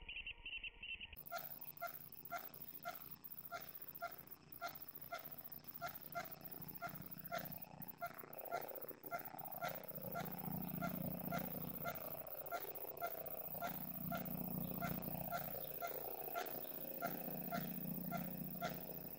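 Unexplained rhythmic pulsing noise, about two pulses a second, that begins about a second in. A lower drone swells and fades several times in the second half.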